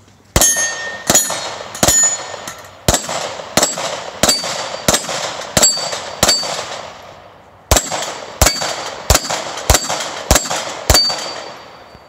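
Rapid aimed gunshots at steel plate targets, about one every two-thirds of a second: ten shots, a pause of about a second and a half, then six more. Many shots are followed by a high ringing ping as the steel plate is hit.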